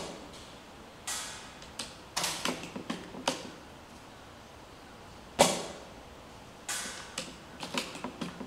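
ARES Amoeba Striker AST-01 bolt-action airsoft rifle: the bolt is worked, with a run of clicks and sliding clacks, and then fired once a little past halfway with a sharp report. The bolt is cycled again near the end, ready for the next shot.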